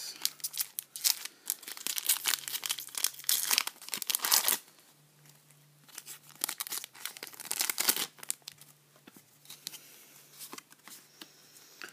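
Foil wrapper of a Pokémon trading-card booster pack being torn open and crinkled by hand, in a dense crackling run for the first four and a half seconds. Then come scattered crinkles as the cards are worked out of the pack.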